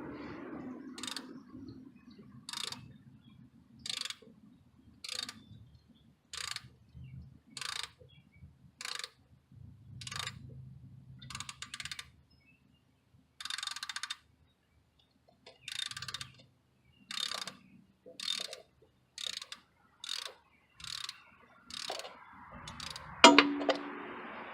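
Hand ratchet (3/8-inch drive) clicking in short bursts, roughly once a second, as the handle is swung back and forth to loosen a lawnmower's oil drain plug. A louder clunk with a brief ring comes near the end.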